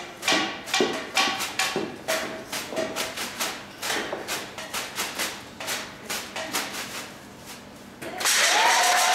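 Metal serving cloches and utensils struck in a rhythm, the ringing taps growing quieter and sparser, then applause breaks out about eight seconds in.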